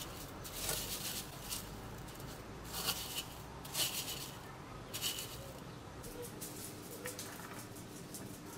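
Crushed cornflakes rustling and crunching as a piece of milk-soaked meat is pressed and rolled in them with wooden chopsticks, in several short bursts, fainter in the last few seconds.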